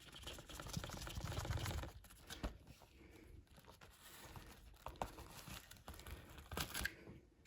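Plastic shrink-wrap being torn and crinkled off a Blu-ray case, loudest and densest in the first two seconds, then softer crinkling with a few sharp clicks.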